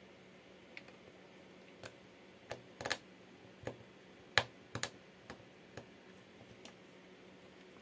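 Irregular light clicks and ticks, about a dozen, from a small precision screwdriver and tiny screws tapping against a Redmi phone's frame as the screws are set in place and driven. The loudest click comes a little past the middle.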